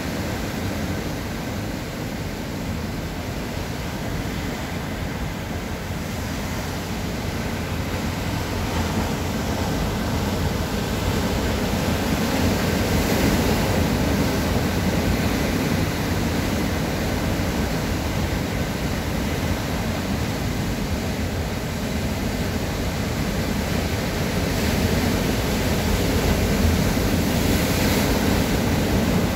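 Rough sea: surf breaking and churning over shore rocks, a continuous heavy rush that swells louder about twelve seconds in and again near the end.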